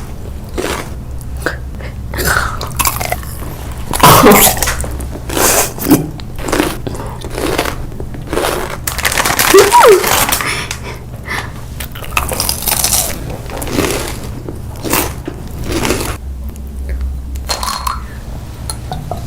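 Close-miked eating: irregular bites and crunchy chewing of food, over a steady low hum.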